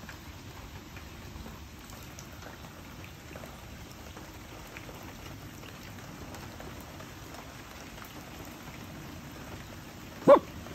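Steady rain falling, with scattered drips. A single short, loud squeak near the end.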